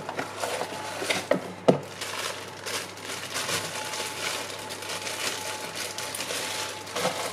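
Packaging of a fishing reel being opened by hand: plastic crinkling and rustling, with scattered clicks and taps and one sharper knock a little under two seconds in.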